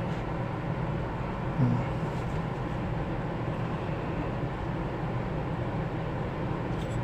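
Steady low background hum, with a faint soft bump about one and a half seconds in.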